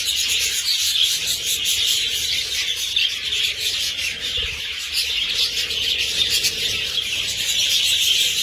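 A large flock of lovebirds in an aviary room chirping and chattering continuously, many high calls overlapping into a steady din.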